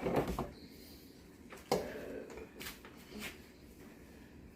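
A few irregular knocks of a kitchen knife on a cutting board as vegetables are cut, the sharpest a little under halfway through.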